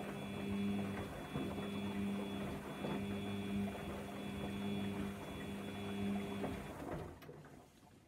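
Samsung front-loading washing machine tumbling a wet duvet in its wash cycle: a steady drum-motor hum that swells and fades, with the soft rustle and knock of the load turning over. The motor stops about seven seconds in as the drum pauses between tumbles.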